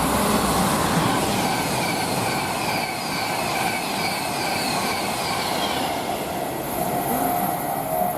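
A train passing by: a steady rush of wheel and rail noise, with a run of short, high, falling whines repeating through the middle few seconds.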